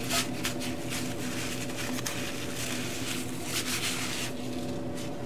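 Paper towel rubbed across the seasoned surface of a cast-iron skillet, a run of short wiping strokes that dust out leftover egg crumbs. A steady low hum runs underneath.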